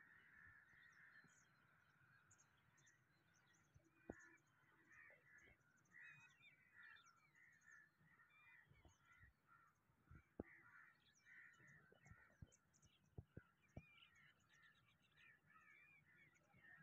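Near silence with many faint, scattered calls of distant birds, and a few short, sharp clicks, most of them in the second half.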